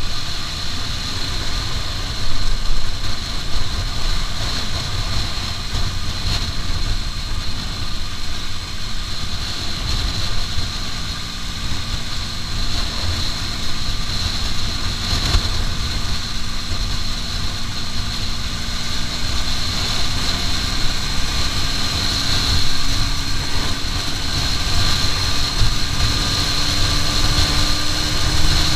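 Aprilia RS4 125's single-cylinder four-stroke engine running at high speed, its pitch climbing slowly and steadily, under heavy wind buffeting on the microphone.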